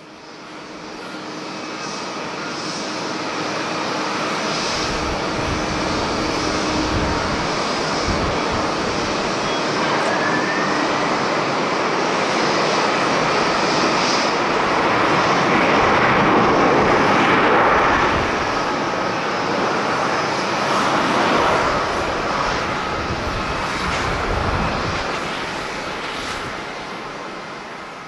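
Jet engines of a twin-engine Boeing 767 airliner at takeoff thrust during the takeoff roll: a broad, steady jet noise that swells to its loudest about two-thirds of the way through, then slowly fades as the aircraft moves away down the runway.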